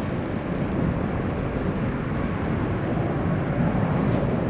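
Boeing 777 twin-jet engines running as the airliner rolls along the runway: a steady low rumble that grows slightly louder.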